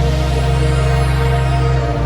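Background music with steady sustained low synth notes, the chord changing just before the end.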